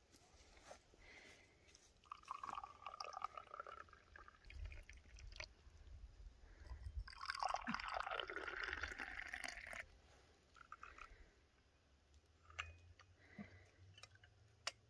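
Hot tea poured into two glass tea cups, one after the other. The second pour is the louder and lasts about three seconds. A few light clicks follow near the end.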